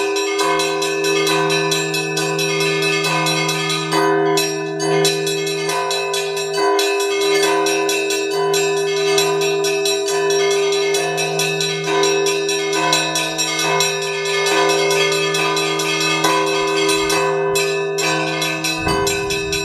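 Russian Orthodox church bell ringing on a five-bell belfry whose large bell is 200 years old: quick repeated strikes on the smaller bells over a sustained low ring that carries through.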